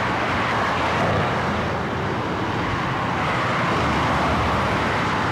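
Busy multi-lane freeway traffic: a steady, even wash of tyre and engine noise from many passing cars and trucks, at a sound level of 80 dBA, the highway's level with no noise barrier reduction.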